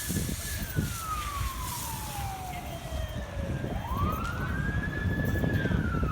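An emergency siren in a slow wail: its pitch glides slowly down for about three seconds, climbs quickly back up about two thirds of the way through, holds briefly and begins to fall again. A low rumble runs beneath it.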